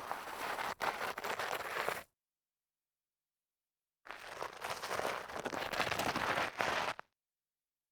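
Sneaker sole sliding and scuffing over light grit, a gritty scraping. There are two slides: the first stops about two seconds in, and the second starts about four seconds in and lasts about three seconds, with dead silence between them.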